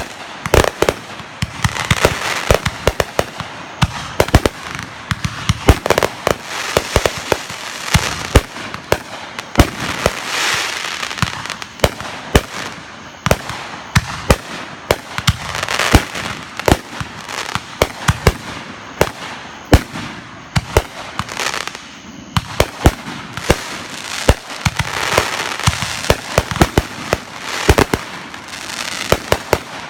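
Fireworks going off in a continuous barrage: many sharp bangs every second over a steady crackle and hiss, swelling and easing in waves.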